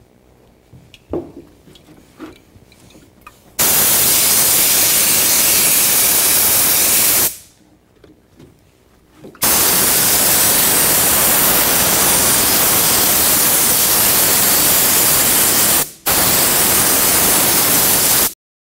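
Air-fed canister spray gun spraying upholstery adhesive in three long, steady hisses of about four, six and two seconds, each starting and stopping abruptly. A few light knocks of handling come before the first spray.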